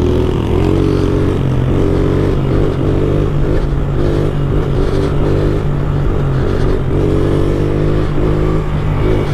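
70cc pit bike engine running under throttle while riding, its pitch rising and dropping back several times as the throttle is opened and eased off.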